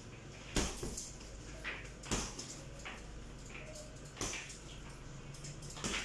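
Boxing gloves thudding into a heavy punching bag in irregular punches, with four or five hard hits and a few lighter ones.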